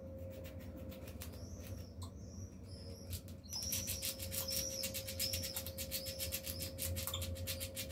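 Eurasian red squirrel gnawing an apricot pit, its teeth scraping in fast, rapid strokes, while giving short high chirping hiccups about every half second. The gnawing and hiccups get faster and louder about halfway through.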